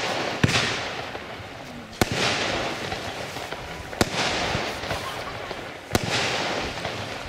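Panda 'Transformer' fireworks cake (compound battery of about 200 g net explosive mass) firing, one shot about every two seconds. Each shot is a sharp bang followed by a second or so of hissing crackle as the stars burn out; there are four bangs.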